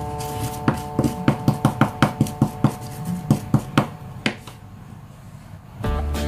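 Small wooden pestle knocking against a miniature wooden mortar board as spices are crushed: a quick run of sharp taps, about four a second, for about three and a half seconds. Background music comes back in near the end.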